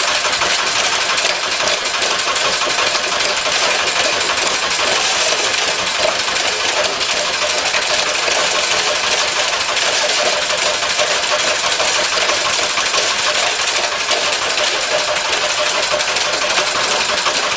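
The Anderson engine running steadily and driving a rock crusher, with a rapid, even knocking beat.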